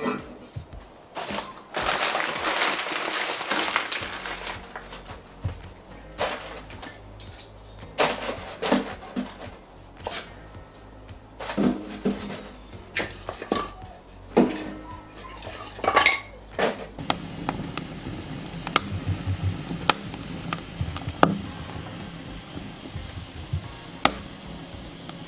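Split firewood logs knocking and clattering against each other and the metal firebox as they are stacked into a wood-burning stove, with a longer scraping rustle early on. Later the lit fire crackles with scattered sharp ticks.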